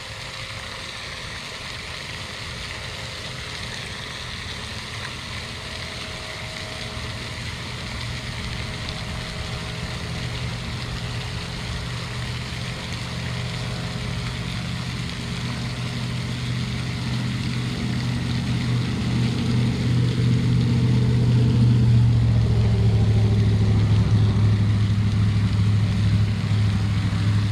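Steady splashing of a pond's spray fountain, with the low hum of an engine that grows louder from about halfway through and stays loud near the end.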